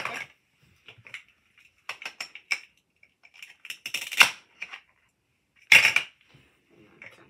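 Plastic toy kitchen utensils and pieces clattering and knocking as they are handled: a loud clack at the start and another about six seconds in, with bursts of lighter taps between.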